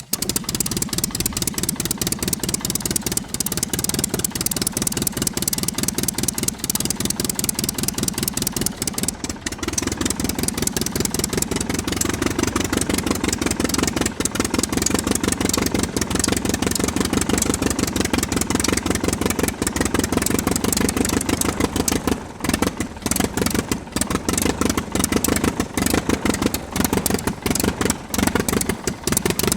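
VW Golf's engine accelerating and easing off repeatedly through an autocross course, its pitch rising and falling, over a constant hiss.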